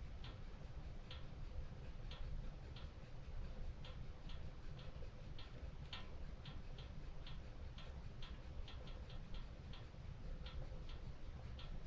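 Wood fire crackling in a stone fireplace: irregular small pops and snaps, a few a second, over a low steady rumble of the burning fire.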